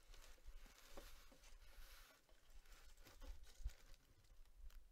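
Faint handling of a cardboard mailer box as its lid is opened and the tissue paper inside is touched: soft rustles and a few light knocks, the sharpest a little past the middle.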